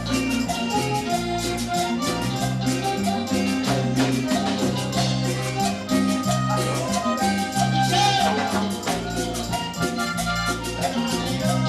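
Latin dance band recording playing an instrumental passage, with a repeating bass line under steady, quick percussion.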